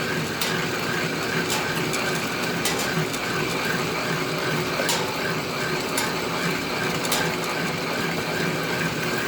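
Antique flat-belt-driven drill press running steadily while it drills through steel plate, with a light regular tick about three times a second and a few sharp clicks.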